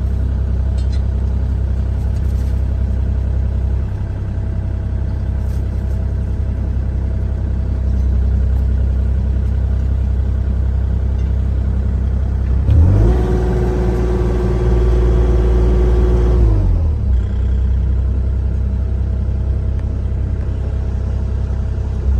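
Mini excavator's diesel engine running steadily, heard from inside the cab. About 13 seconds in, a pitched whine rises over the engine as the hydraulics are worked, holds for about four seconds, then drops away.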